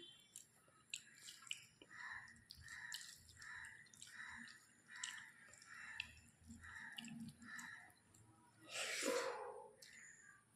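Close-miked chewing of food, soft wet mouth sounds in an even rhythm of about two a second with small clicks. A louder breathy rush comes near the end.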